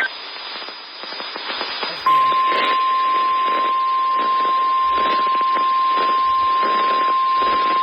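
Radio static hissing, then about two seconds in the NOAA Weather Radio 1050 Hz warning alarm tone starts: one steady high tone, the signal that a warning, here a severe thunderstorm warning, is about to be broadcast.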